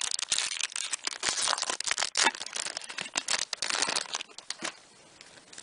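Foil wrapper of a Pokémon trading card booster pack crinkling and tearing as it is opened by hand. A dense run of crackles dies down about four seconds in.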